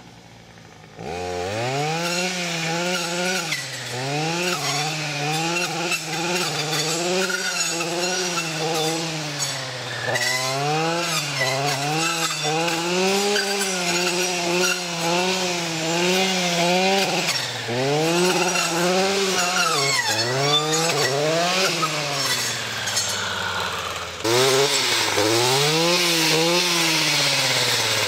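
Stihl FS 240 C-E brushcutter's two-stroke engine running at high revs, its pitch sagging and climbing back every second or two as the cutting blade takes load in saplings. It comes in about a second in and is louder near the end.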